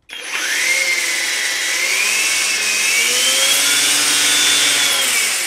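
EGO 56V battery lawn edger (8-inch edger attachment on the power head) switching on and running with its blade spinning free in the air: a loud electric-motor whine with blade whoosh. The pitch climbs and shifts as the variable-speed trigger is squeezed harder, eases slightly near the end, and the motor starts to wind down.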